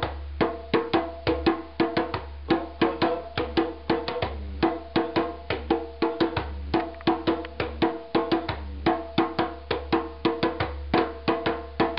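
Djembe played with bare hands: a steady, repeating antelope-part pattern of quick open strokes answered by a bass stroke, several strokes a second.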